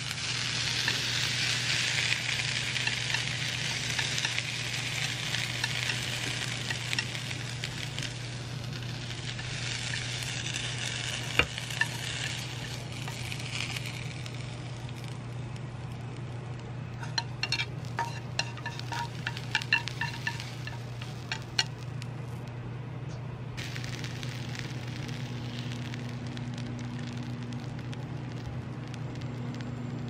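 Sliced onions sizzling in a frying pan. A burst of utensil clicks against the pan comes about two-thirds of the way through as they are stirred. A steady low hum runs underneath.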